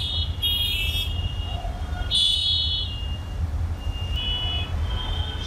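Busy road traffic below with several short, high-pitched horn toots, over a steady low rumble.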